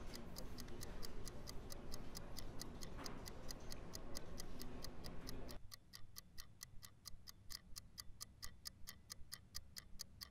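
Fast, steady clock ticking, about four ticks a second, over the murmur of a crowded cafeteria. The murmur cuts off suddenly about five and a half seconds in, leaving only the ticking.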